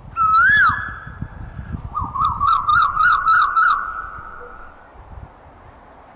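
Asian koel calling: one loud whistled note that rises and then falls, then a quick run of about seven short rising notes.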